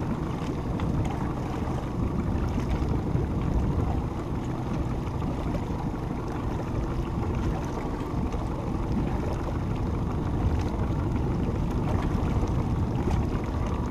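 Steady wind rumble on the microphone with water lapping at a small boat's hull, and a few light knocks.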